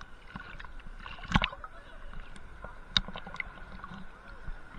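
Sea water sloshing and gurgling around a waterproof action camera at the surface, heard through its housing, with scattered sharp clicks and knocks, the loudest about a second and a half in and another near three seconds.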